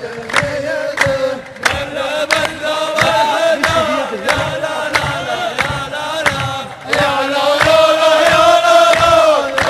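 Men's chorus chanting a long, drawn-out melodic refrain of a Gulf mawwal in unison, over a steady beat of sharp strikes. The chant swells louder about two-thirds of the way through.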